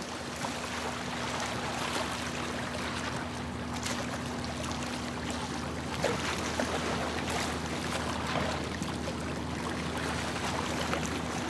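Water lapping and trickling, an even wash with small splashes, over a steady low hum.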